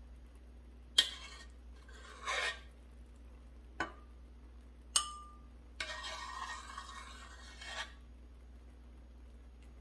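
A metal spoon skimming foam off strawberry jam in a stainless steel pot: three sharp clinks of the spoon against the pot and bowl, the loudest about a second in and one at five seconds with a brief ring. Short scraping passes through the jam come about two seconds in and again from about six to eight seconds.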